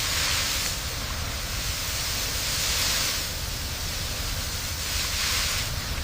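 Steady rushing hiss over a low rumble, with no distinct events.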